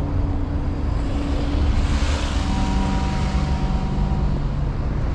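City street traffic: cars and a truck running past with a steady low rumble, and wind on the microphone. A louder pass of vehicle noise comes about two seconds in, with a few steady engine-like tones that come and go.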